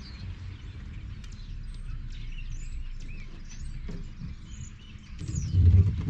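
Small birds chirping, with short rising and falling notes, over a low rumble. About five seconds in, a louder low rumbling with knocks sets in.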